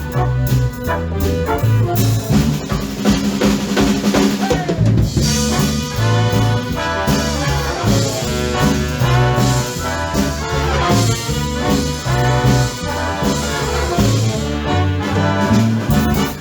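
A live swing big band playing: brass section with trumpets and trombones over a drum kit and a walking bass line.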